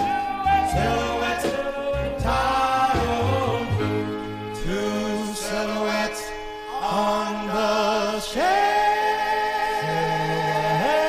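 Oldies pop recording: a vocal group singing long held harmonies with vibrato, notes sliding up into pitch, over a band with drums in the first couple of seconds.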